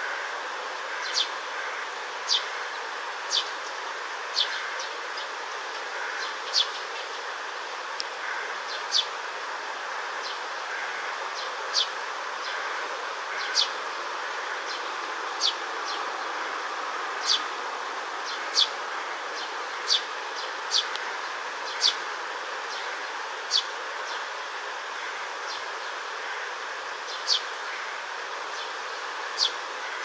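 Eurasian tree sparrow giving short, sharp, high chirps, one every one to three seconds, over a steady background drone.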